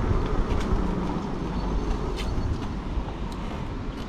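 E-bike riding noise: wind rumbling on the microphone over steady tyre and road noise, with a few sharp clicks.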